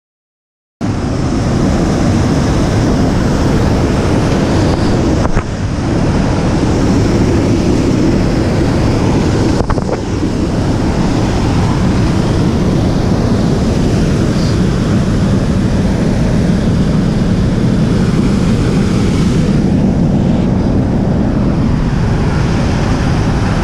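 Waterfall rushing steadily, with wind on a GoPro's microphone. It starts suddenly about a second in, and there are two brief knocks around five and ten seconds in.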